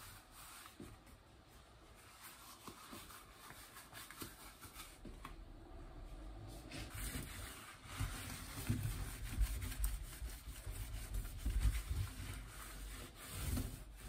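Yellow rubber washing-up gloves being pulled on, then a cloth scrubbing a soapy stainless steel sink drainer. The rubbing and scraping gets louder and more uneven in the second half.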